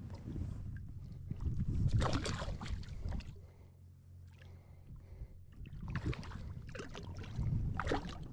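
Shallow river water splashing and sloshing as hands and a fish move through it, in two bouts: about two seconds in, and again from about six to eight seconds.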